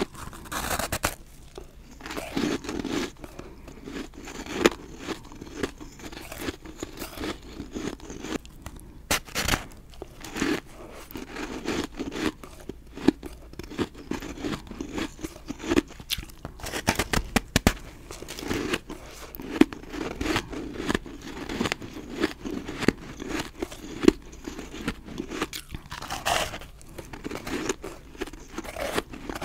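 A person biting into and chewing snowballs of dry, powdery refrozen ice. Each bite is a sharp crunch, followed by a run of quick crunchy chewing, repeated over and over.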